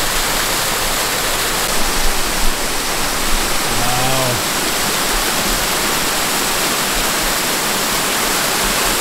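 Mountain brook pouring down a snowy, icy rock cascade in a steady rush of water, with a brief low hum about four seconds in.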